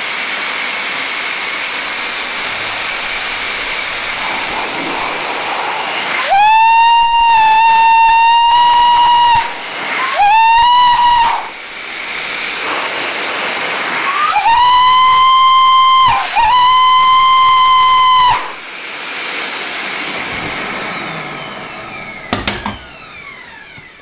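Electric pet/motorcycle dryer blower running on its cold setting with a steady rushing hiss, powering a brass replica of a 1906 North Eastern Railway locomotive whistle. The whistle sounds four loud, shrill, steady blasts: a long one, a short one, then two of about two seconds each, close together. Near the end the blower winds down.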